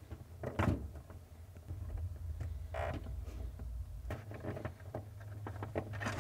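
Faint plastic clicks and small rattles of a refrigerator ice maker's wire-harness connectors being unlatched and pulled apart, over a low steady hum.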